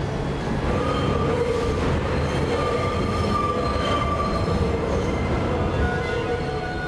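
Subway train running on the rails, with a steady rumble and a high wheel squeal that starts about a second in and fades after four seconds.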